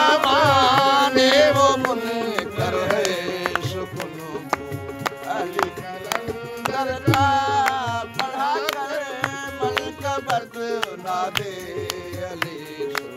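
Harmonium accompaniment to a devotional manqabat: steady held reed chords under a run of quick hand-drum strokes. A voice sings brief drawn-out phrases near the start and again around the middle.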